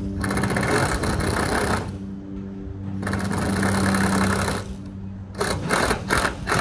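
Power drill driving self-drilling screws into metal roof sheeting: two runs of about a second and a half each, then several short bursts near the end as screws are seated.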